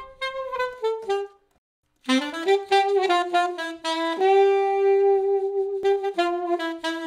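Jazz background music carrying a single melody line: a short phrase of falling notes, a brief break, then a longer phrase with one note held for about two seconds.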